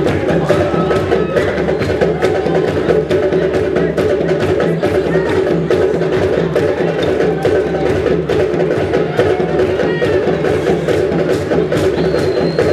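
Live African percussion music: drums played in a dense, steady rhythm of sharp strikes.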